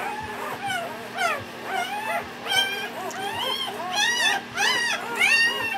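A litter of four-day-old Newfoundland puppies whimpering and squealing: many short, high-pitched cries that rise and fall and overlap, louder and shriller in the last couple of seconds.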